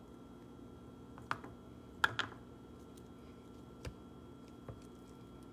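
About five light, scattered clicks and taps of a measuring cup and containers being handled while shredded parmesan substitute is scooped and tipped into a food processor bowl, over a low steady room hum.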